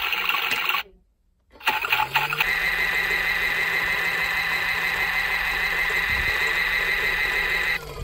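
Toy washing machine's small electric motor spinning the plastic drum. It cuts out about a second in, spins back up with a rising hum and runs with a steady high whine, then winds down near the end.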